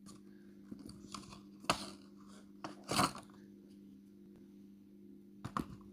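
Hands unpacking washi tapes: short scrapes, rustles and clicks of packaging and tape rolls being handled, with louder bursts about two seconds in, about three seconds in and near the end, over a steady low hum.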